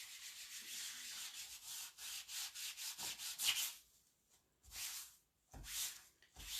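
A wipe rubbed across a silkscreen transfer to clean off chalk paste. There is steady scrubbing for about two seconds, then a run of quicker strokes, and after a short pause three separate wiping strokes.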